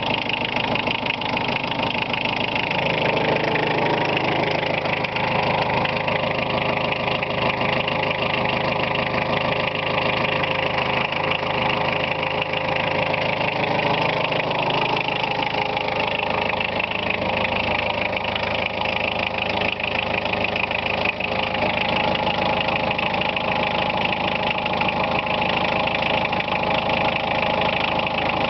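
1978 VW Golf Mk1's four-cylinder diesel idling steadily about a minute after a cold start at 5 °C, the engine still cold. Its speed picks up slightly a few seconds in and settles lower about halfway through.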